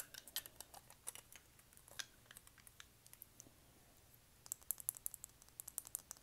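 Fingernails tapping and clicking on lip gloss tubes and their square caps: scattered sharp taps, then a quick run of taps in the last second and a half or so.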